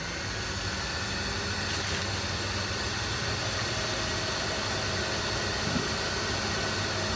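Sharper Image electric centrifugal juicer running steadily under load, its motor humming as ripe star fruit are pushed down the feed chute and shredded.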